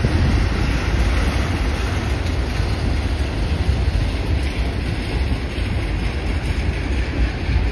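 Freight train of covered hoppers and tank cars rolling past, a steady rumble of steel wheels on the rails.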